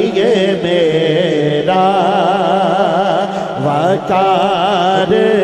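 A man singing a naat, an Urdu devotional poem, into a microphone. He draws out long melismatic notes with a heavy wavering vibrato and lands on the word "waqar" near the end.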